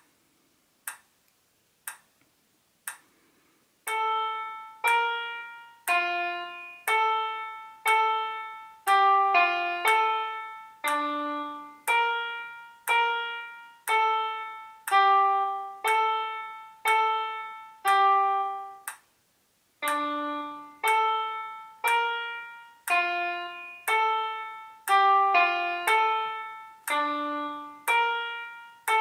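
Piano app on a touchscreen playing a slow melody one note at a time, mostly one note a second with some quicker pairs, each note fading out; four clicks a second apart count in before the first note, and there is a brief pause midway.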